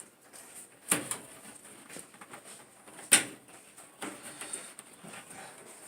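Two sharp knocks from parts of an opened clothes dryer being handled, about two seconds apart, the second louder, with faint clatter between.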